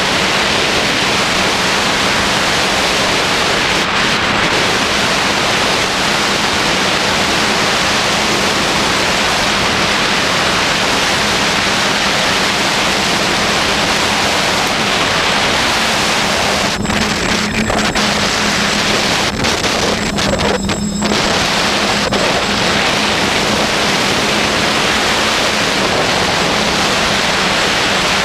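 Steady loud rush of air over a quadcopter's onboard camera microphone in flight, with a low steady hum underneath; the rush thins out briefly a few times about two-thirds of the way through.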